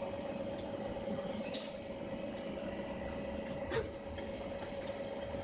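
CNC lathe running with a steady whine over a background hum, a short hiss about a second and a half in and a sharp click near the four-second mark.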